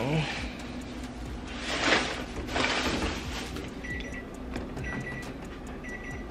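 Two brief bursts of rustling and handling noise, then a short, high electronic beep repeating about once a second.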